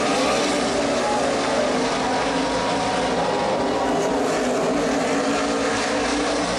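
NASCAR Cup stock cars' V8 engines running at racing speed on the road course. Their engine notes glide in pitch over a dense, steady wall of noise.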